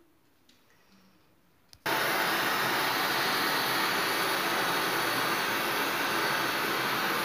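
Electric arc welding on a steel heating pipe: the arc strikes suddenly about two seconds in and then keeps up a loud, steady hiss.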